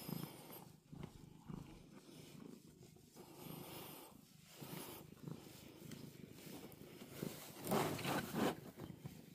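Domestic cat purring close up in slow swells, with a louder stretch near the end, while its face is wiped with a tissue.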